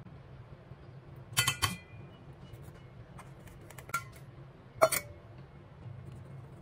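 Metal clinks of a fine-mesh stainless steel sieve knocking against a stainless steel mixing bowl while flour is sifted: a quick cluster about a second and a half in, a single clink near four seconds, and the loudest pair near five seconds.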